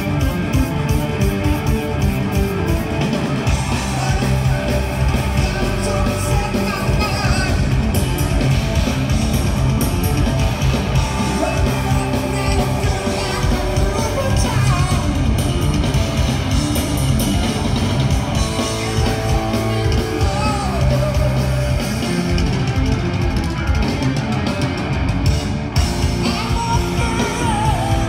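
Live hard rock band playing at full volume: electric guitar, electric bass and a drum kit, with singing, heard from the audience through a phone microphone.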